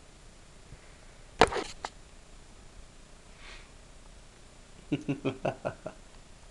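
A single loud bang about a second and a half in, with a couple of smaller knocks just after it; near the end, a rapid run of about eight short thuds within one second.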